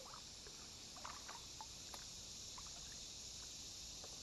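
Kayak gliding quietly on calm creek water, with small scattered drips and trickles of water, likely off the paddle, over a steady high hiss.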